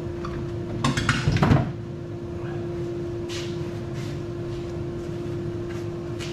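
A wooden plywood jig being lifted off its wall hooks: a quick cluster of knocks and clatters of wood on wood about a second in, then a few lighter bumps as it is handled, over a steady hum.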